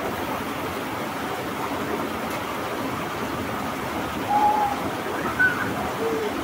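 Steady hiss of rain and running water, with a few short, high-pitched calls about four to six seconds in.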